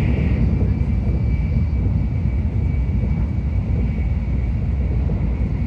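Steady low rumble of a Tokaido Shinkansen train running at speed, heard from inside the passenger cabin, with a faint thin high whine above it.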